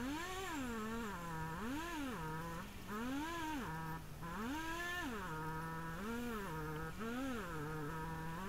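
Two-stroke chainsaw cutting through a fallen tree trunk, its pitch climbing and dropping about once a second as the chain bites into the wood and frees up again.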